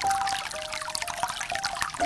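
Aquarium water trickling and splashing steadily, with a few soft held musical notes coming in over it.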